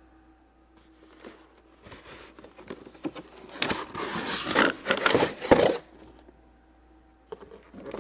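Toy packaging being opened and handled: irregular crinkling, rustling and tearing of cardboard and plastic wrap, with sharp clicks, heaviest about four to six seconds in, then more rustling near the end.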